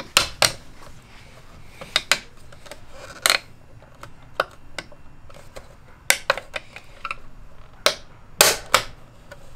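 A snap-on M-style mirror cap being pressed onto an Infiniti G37 side mirror housing, giving about a dozen sharp plastic clicks and snaps at irregular intervals as its clips are forced over the housing. The loudest snaps come near the start and near the end. The creaking snaps are the kind the installer finds scary to hear, fearing the cap will break.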